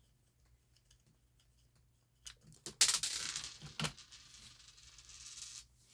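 Hands working on a radio-control car: faint light clicks of small plastic and metal parts being handled, then a few sharper clacks about two and a half seconds in, followed by about three seconds of noisy crinkling rustle with another clack partway through.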